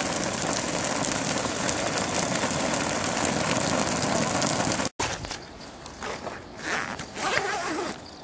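Simulated heavy rain: water spray pelting ripstop canvas in a loud, steady hiss. It cuts off suddenly about five seconds in, leaving a much quieter background with faint irregular sounds.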